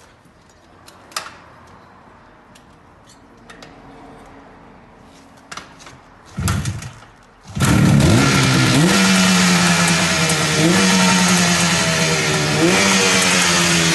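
Suzuki T500's air-cooled two-stroke parallel-twin engine being kick-started. After a few faint clicks and knocks, it fires briefly about six and a half seconds in, catches about a second later and runs, with the revs blipped up briefly a few times.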